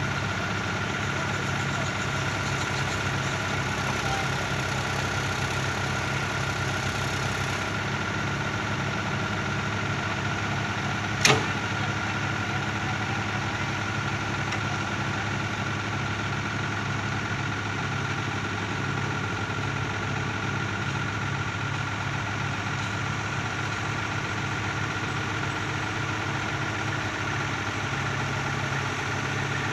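Mini excavator's diesel engine running steadily as its arm lifts a concrete mixer, with a single sharp knock about eleven seconds in.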